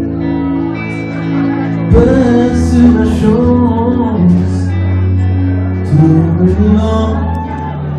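Live band playing a pop-rock song, with a man singing lead over electric bass and held keyboard chords. The vocal line comes in about two seconds in, over steady sustained chords.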